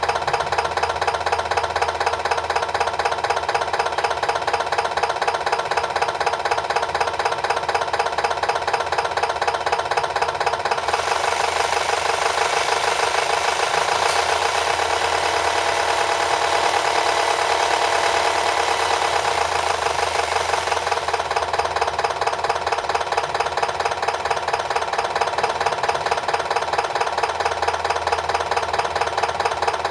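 Alan Bond electronic diesel engine sound module in an RC Scania truck, playing a pulsing simulated diesel idle. About eleven seconds in it changes to a faster, brighter revving sound, and it settles back to idle about ten seconds later.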